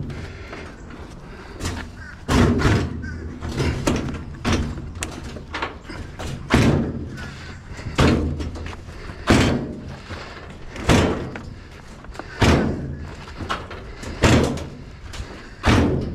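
Heavy bangs and thuds repeating roughly every second and a half as bulky sheet-metal appliances are handled and loaded.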